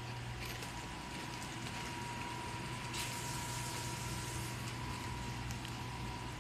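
Laboratory microwave extraction system running a test cycle: a steady low hum with a steady high whine over it, and a brief hiss about three seconds in.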